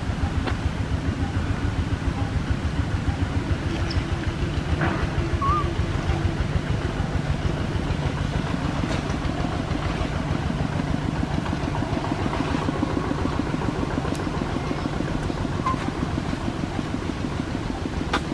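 Small engine idling steadily with a fast, even pulse. A brief high chirp about five seconds in.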